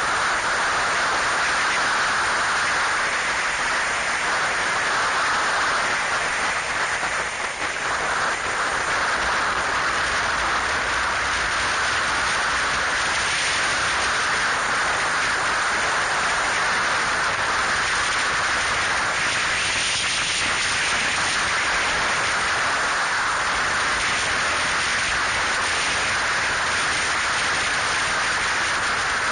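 Steady wind rush on the microphone of a camera on a moving motorcycle, a dense even hiss that covers any engine sound, dipping briefly about seven seconds in.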